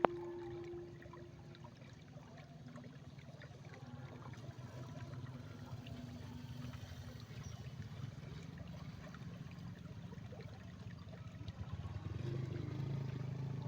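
Water flowing in a rice field, a steady low rush that grows louder near the end, with a sharp click right at the start.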